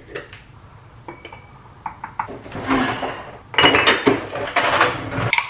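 Glass jars and bottles clinking and clattering as they are handled, with a short spell of rustling near the middle and a louder stretch of clattering over the last couple of seconds as bottles in a refrigerator door shelf are moved about.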